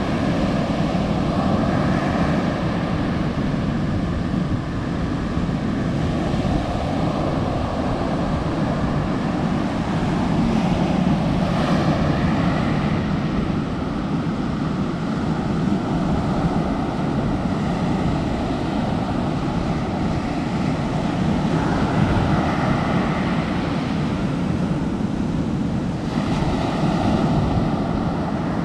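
Ocean surf breaking steadily on the shore, mixed with wind buffeting the microphone.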